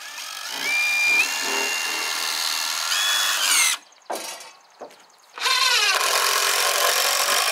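DeWalt cordless impact driver driving long screws into 2x4 wood studs: one run of about three seconds whose whine steps up in pitch, two short blips, then a second run of about two seconds.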